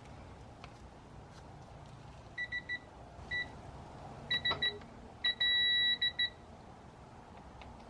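Digital torque wrench beeping while the fork top nut is tightened to 20 ft-lbs: short high beeps in quick groups that give way to one long steady beep about two-thirds of the way in as the set torque is reached, then two short beeps.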